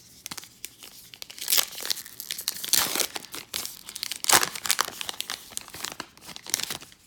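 A baseball card pack's wrapper being torn open and crinkled by hand, an irregular run of crackling and ripping with louder tears about a second and a half, just under three, and about four seconds in.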